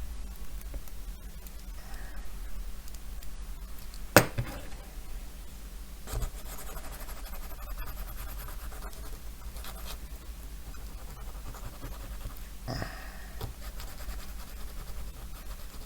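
Faint scraping and handling noises of a small plastic model part being trimmed by hand, with one sharp click about four seconds in.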